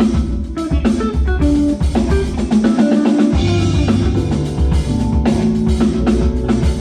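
A live band playing an up-tempo groove: drum kit and guitar over heavy low bass notes.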